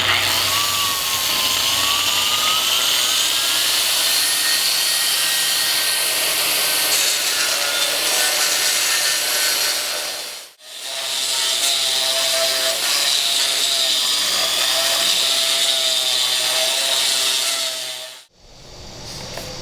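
AGP handheld concrete grinder running its 125 mm diamond cup wheel on concrete: a loud, dense grinding noise with a motor whine that rises in pitch over the first few seconds as the variable speed is turned up. The sound breaks off abruptly twice, once about halfway through and again near the end.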